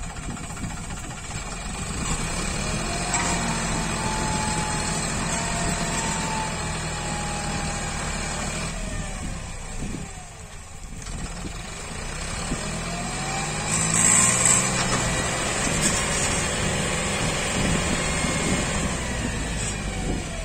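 John Deere 5050E tractor's three-cylinder diesel engine labouring under heavy load as the tractor, stuck in deep mud with a loaded trolley, tries to pull free. The engine revs rise and fall repeatedly, dip briefly about halfway, then climb again.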